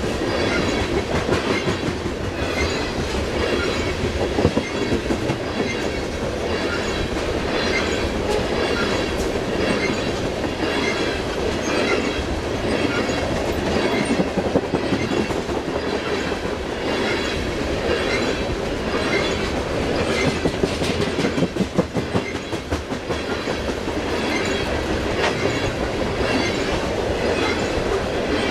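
Loaded coal hopper cars of a long freight train rolling past close by: a steady rumble of steel wheels on rail with a regular clickety-clack from the wheel sets.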